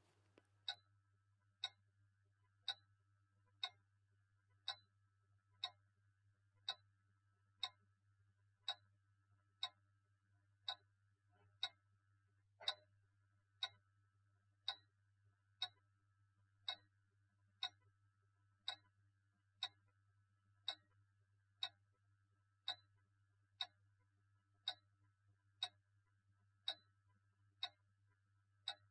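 A clock ticking steadily, about once a second, over a faint low hum.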